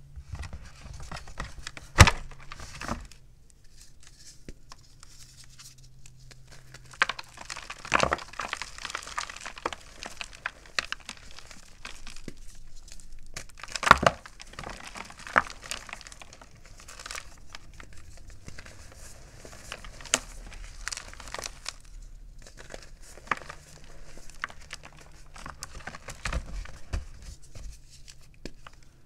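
A pressed gym chalk block being snapped and crumbled by hand into powder. Sharp cracks about 2, 8 and 14 seconds in, with crunchy, gritty crumbling between them.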